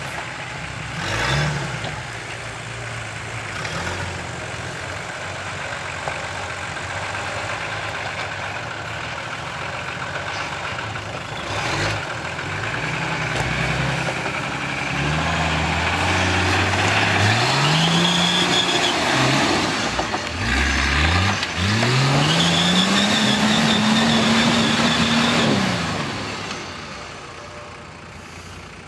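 Off-road Nissan Patrol's diesel engine pulling through snow, revs climbing in several rises, then held high for a few seconds before falling away near the end.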